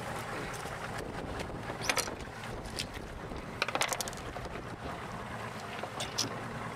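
Wind and water lapping around a small fishing boat's stern, over a low steady hum, with a few short knocks and splashes about two seconds in, again after three and a half seconds and near the end.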